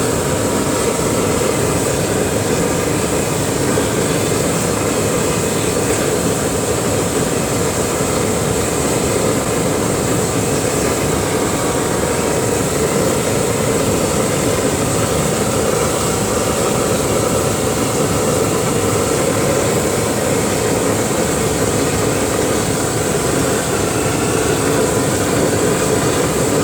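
Waste-oil burner firing into a homemade foundry furnace: a loud, steady roar of flame and forced air, with a faint steady whine on top.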